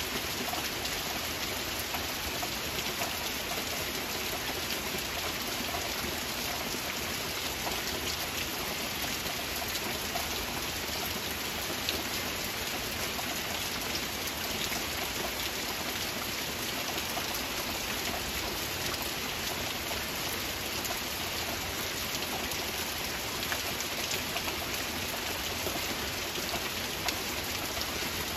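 Steady rain: a constant hiss with many small drop ticks scattered through it.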